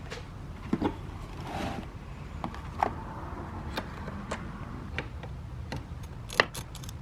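Sparse light clicks and metal taps of hand tools working on a car battery's terminals, about one every half second to a second, over a low steady hum.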